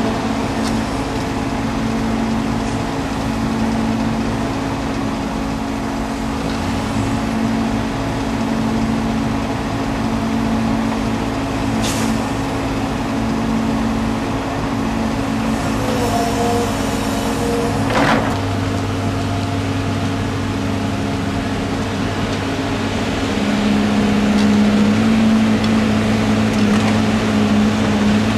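Mobile crane's diesel engine running steadily as it hoists a tower crane jib, with two short knocks about twelve and eighteen seconds in.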